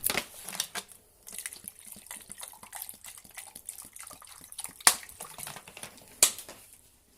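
Water being poured into a painter's water pot, splashing and trickling irregularly, with two sharp knocks about five and six seconds in.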